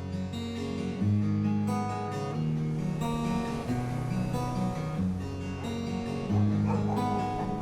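Background music: acoustic guitar playing sustained strummed chords that change about every second.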